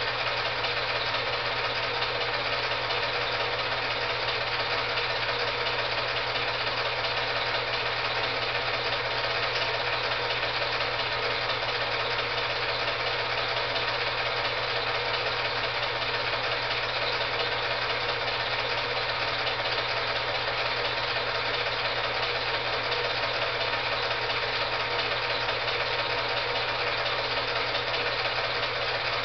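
Steady hum and whir of a film projector running, unchanging throughout, with no sound from the lifting itself.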